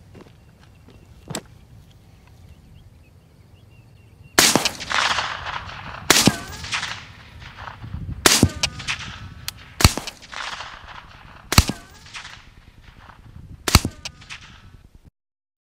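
Suppressed short-barrelled 5.56 rifle with a Griffin Recce 5 suppressor firing supersonic rounds: six sharp reports about two seconds apart, each trailing off in a rolling echo.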